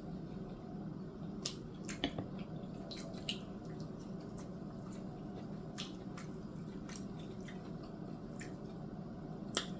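Wet mouth sounds of someone eating pan-seared chicken: squishy chewing with scattered small clicks and smacks, over a steady low hum.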